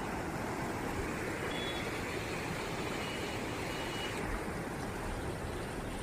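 Floodwater of a swollen, muddy river rushing and churning past a concrete edge, a steady noise with no letup.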